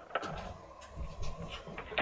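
Handling noise: soft rustling and small clicks, with a sharper click near the end, as the phone camera and the plush toy pieces are moved over fabric.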